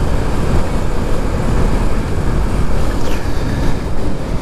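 Wind rush and buffeting on the microphone of a Bajaj Pulsar NS200 motorcycle cruising at about 58 km/h, with the rumble of the bike and road underneath. The noise is steady and loud, with no letup.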